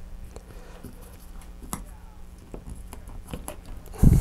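A few faint clicks of gloved hands handling small globs of epoxy clay on a cutting mat, over a steady low hum, then a single loud thump about four seconds in as a hand comes down on the mat.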